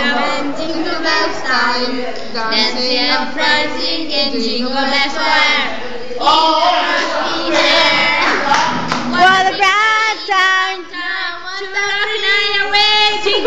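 Several teenage girls singing a song together.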